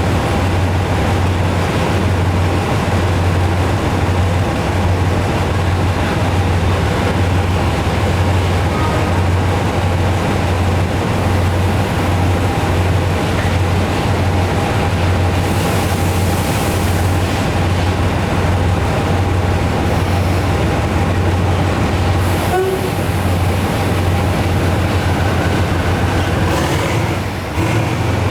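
GE diesel-electric locomotive's diesel engine running steadily, a loud unbroken low drone. There is a brief hiss about halfway through.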